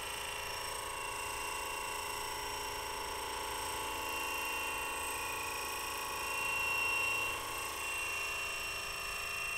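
Radio-controlled model helicopter with intermeshing Flettner rotors in flight: a steady whine of the motor and rotors with several high tones, swelling briefly about seven seconds in.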